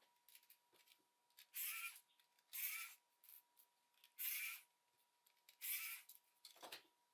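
Four short scraping strokes on the plastic of a Logitech G304 mouse as it is taken apart, each about half a second long, followed by a softer knock near the end. A faint steady high tone runs underneath.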